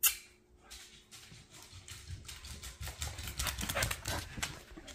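A sharp knock at the start, then a dog's claws clicking on a hardwood floor, the clicks coming thicker and faster as the dog comes up close.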